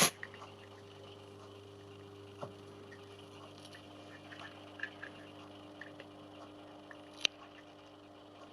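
Quiet room tone with a faint steady electrical hum. A knock right at the start, then a few small handling clicks and one sharper click about seven seconds in.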